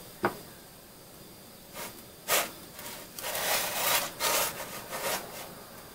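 Crusty bolillo bread halves scraping and rubbing against a nonstick griddle pan as they are handled and moved: a few short scrapes, then a longer rubbing stretch of about two seconds past the middle.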